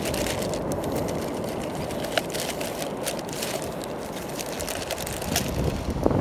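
Steady wind noise on the microphone, with scattered crackles and splashes of shallow water around the wader.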